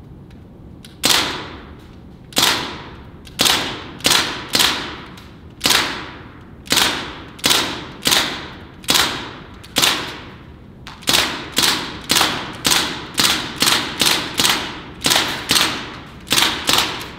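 Air-powered M4-style rifle fired in single semi-automatic shots, about two dozen sharp cracks, each with a short echo. The shots come faster in the second half.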